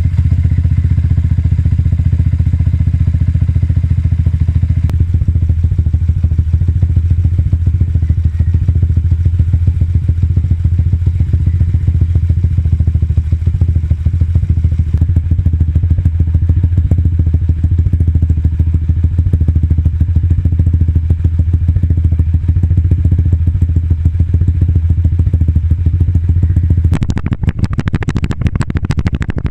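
Yamaha Sniper 150's single-cylinder four-stroke engine running steadily and loud through a modified Mody5 power-pipe exhaust, semi-open with the inner silencer removed and the pipe shortened by about 7 inches. No revving. Near the end the steady note breaks off into a rougher, noisier sound.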